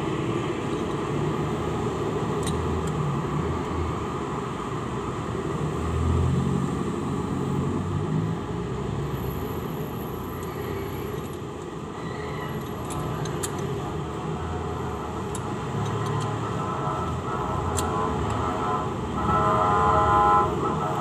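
Steady background rumble of motor traffic, with a few light metallic clicks of a hand wrench on the cylinder head bolts. Near the end a passing engine grows louder.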